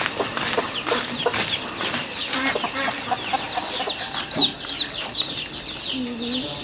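Farmyard chickens clucking, with a dense run of quick, high, falling chirps through the second half.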